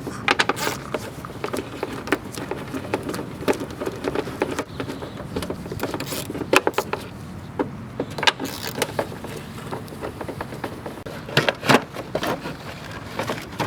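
Hand-tool work in a car's engine bay: scattered clicks, clinks and scrapes of tools and parts being handled, with a few sharper knocks about halfway through and again near the end.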